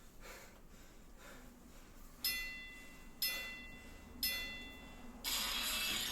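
Three short bell-like chime tones, about a second apart, each ringing out briefly. Upbeat electronic background music starts about five seconds in.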